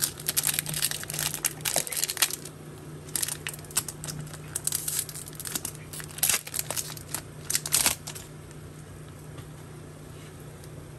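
A foil trading-card pack wrapper being torn open and crinkled by hand, crackling in several spells over the first eight seconds or so, then going quiet.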